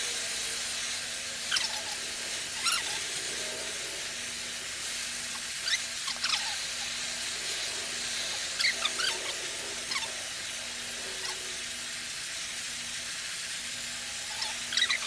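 Cordless drill running steadily as it turns a puller drawing the lower bearing carrier out of a Yamaha F300 outboard gear case, with short high metal squeaks now and then.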